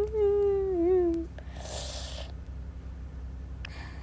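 A person's drawn-out whimpering wail, falling in pitch and ending about a second in, then a breathy sigh, and a short faint breath near the end.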